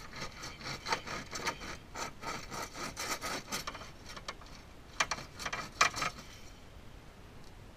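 A hand saw sawing back and forth through the BMW 325i's plastic rear bumper, about three to four strokes a second. It pauses briefly about four seconds in, then goes on with a few harder strokes and stops a little after six seconds.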